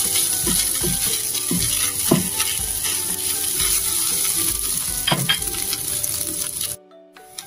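Fried rice sizzling in a nonstick frying pan while a silicone spatula stirs and spreads it, with repeated scraping spatula strokes. The sizzle stops suddenly near the end.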